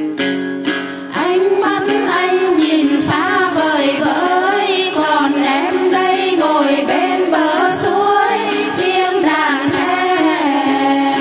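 Women's voices singing hát then, the Tày-Nùng folk song of Bình Liêu, into microphones over a steady instrumental accompaniment.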